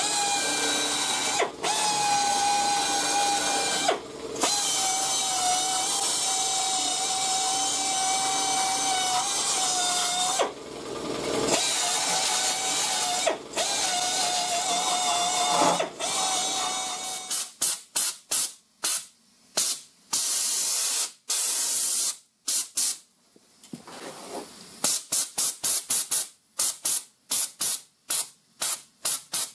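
Drill spinning a wire wheel against fresh flux-core weld seams on a sheet-metal patch panel, cleaning the slag off: a steady motor whine that stops briefly a few times. About two thirds of the way through the tool runs in short bursts, and near the end come quick, light, sharp taps on the metal, about three a second, as the welds are tapped down.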